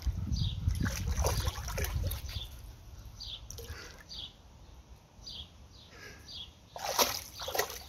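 Pool water splashing and sloshing as a Czechoslovakian wolfdog paws at the water and dips her muzzle after a floating ball. The splashing is strongest at the start, eases to light dribbling, and ends with two sharp splashes near the end.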